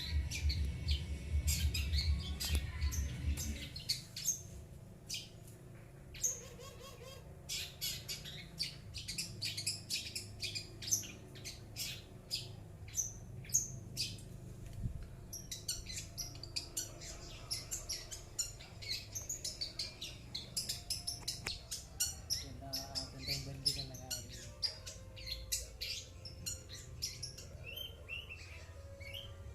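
Caged long-tailed shrike (cendet) calling with many short, sharp, scratchy notes in rapid runs. A low rumble sits under the first few seconds.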